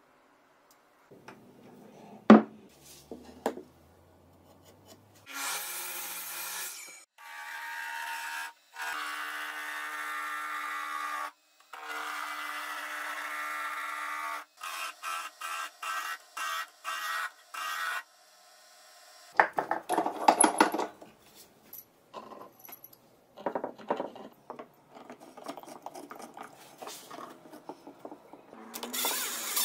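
Workshop tool noises: a sharp knock, then a steady whirring in several runs broken by short stop-start pulses, then rough scraping and rubbing in irregular strokes.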